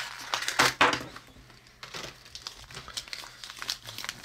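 Foil blind-bag toy packaging crinkling as it is handled and pulled open, with a couple of louder crackles within the first second, then lighter scattered crinkling.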